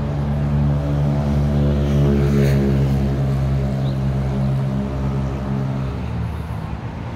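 A large road vehicle's engine running steadily close by, with a slight change in its note about six seconds in, over street traffic.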